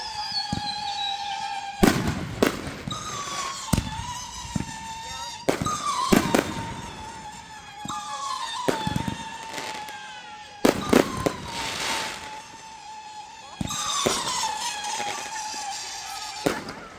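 Consumer fireworks going off: sharp bangs every second or two, with whistling fireworks screeching in between, each whistle sliding slightly down in pitch.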